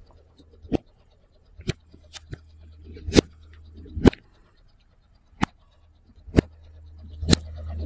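Car tyre rolling slowly over plastic-wrapped snack sausages and mashed food on asphalt, crushing them with a string of about nine sharp pops and cracks, over a low steady rumble from the idling car.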